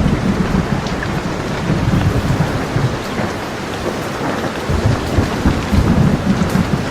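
Steady rain falling with low rolling thunder rumbling underneath. The rumble eases a little a few seconds in and swells again near the end.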